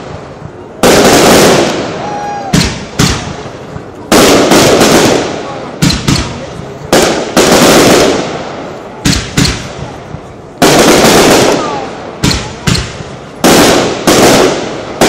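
Aerial fireworks bursting one after another in a loud display: a sudden bang every one to two seconds, each trailing off over a second or so.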